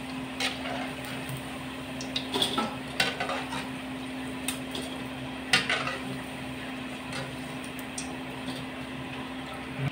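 A metal ladle clinking and scraping against a pan of hot frying oil as battered quail eggs are scooped out, with sharp knocks about half a second, two and a half, three and five and a half seconds in. Under it the oil fries with a steady hiss, along with a steady low hum.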